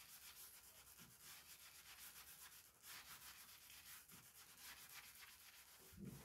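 Faint, quick back-and-forth scrubbing of a sponge over a deba knife's steel blade, cleaning residue off the blade.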